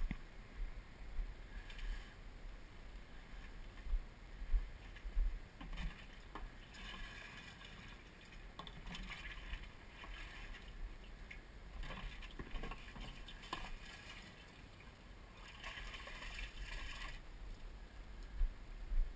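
Low rumble of wind and handling noise on an action camera's microphone as it is moved about, with a few stretches of higher hiss and some light knocks.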